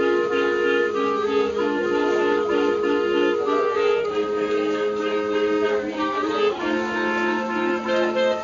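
Clarinet ensemble, with a bass clarinet on the low part, playing a piece in harmony: several held notes sound together and move to new chords every second or so.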